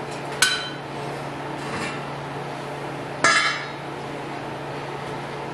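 Steel rocket-stove parts clinking: the star-shaped steel pot support lifted off the stove's chimney with a sharp ringing clink, then set down with a louder metallic clatter a little over three seconds in.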